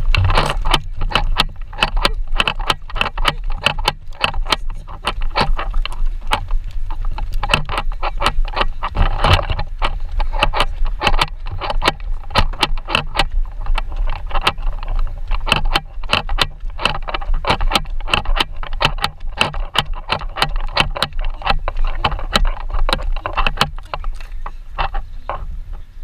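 Handling noise from a carried action camera jostled with each step: dense, irregular knocks and rattles over a steady low rumble.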